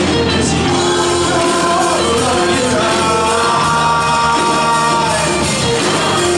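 Large mixed choir singing at full voice, with male lead singers at microphones over the massed voices; held notes shift in pitch without a break.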